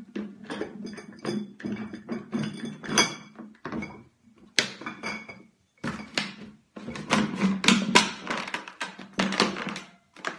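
Glass beer bottles knocking and clinking against each other and against a large plastic jug as it is handled and shifted on a table. The clinks come in irregular clusters, some with a brief ringing, over a steady low hum.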